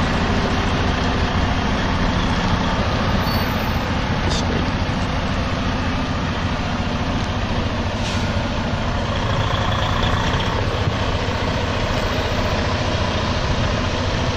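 Freightliner Cascadia semi truck's diesel engine running steadily as the tractor-trailer rolls slowly forward out of a tight parking spot.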